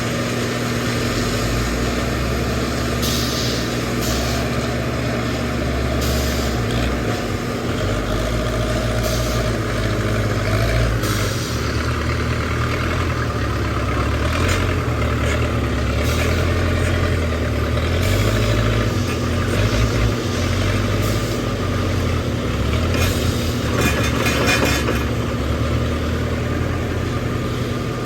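Backhoe loader's diesel engine running under load, its pitch rising and falling repeatedly as it works, with brief bursts of hiss and clatter every few seconds.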